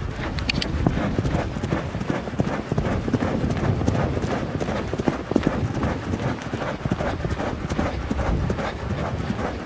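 Horse galloping over grassy steppe: fast, continuous hoofbeats thudding close to the microphone.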